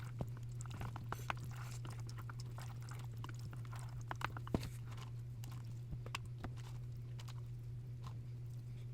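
Close-miked eating sounds: scattered soft clicks and smacks of someone chewing, over a steady low hum.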